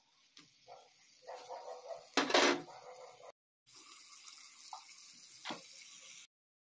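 Potato pieces frying in oil in a pan: a sizzling hiss with a louder rushing burst about two seconds in, then a steadier sizzle with a couple of sharp crackles before the sound cuts off near the end.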